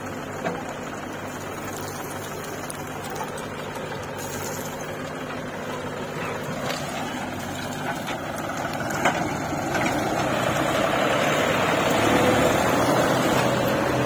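Diesel engines of a JCB backhoe loader and John Deere tractors running steadily while the backhoe digs and loads earth, with a few sharp knocks. The engine noise grows louder from about ten seconds in.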